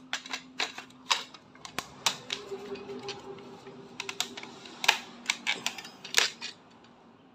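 Irregular sharp plastic clicks and knocks of a Makita 14.4 V cordless circular saw and its slide-on battery pack being handled, as a 4 Ah battery is pushed at the saw and will not seat because a stop on the pack blocks it.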